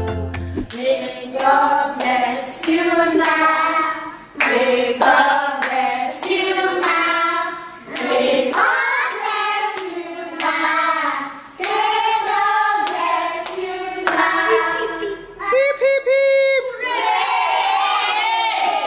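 A group of children singing together and clapping their hands along with the song.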